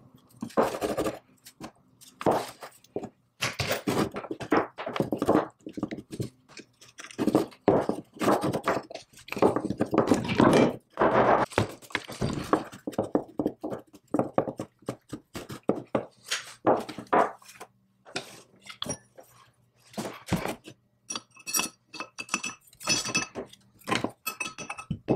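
Small metal parts of an antique belt lacer being handled with a screwdriver on a wooden bench: scattered clinks and knocks, with a quicker run of metallic taps near the end.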